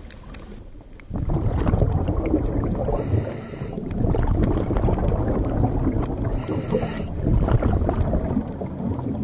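Scuba diver breathing through a regulator underwater: exhaled bubbles rumble and crackle from about a second in, broken twice by a short, higher hiss of an inhalation.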